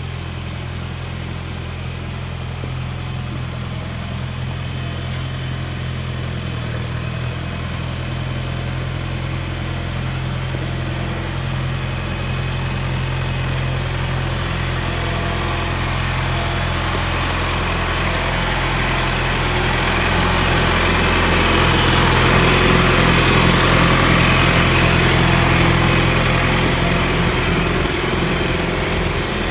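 Old John Deere 410 backhoe's diesel engine running steadily, growing louder through the second half and easing a little near the end.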